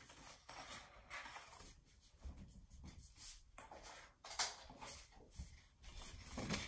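Faint, scattered light taps and rustles of craft paper and tools being handled on a desk.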